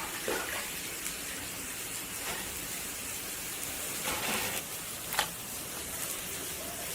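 Tap water running steadily while duck gizzards are rinsed by hand, with a few brief splashes partway through.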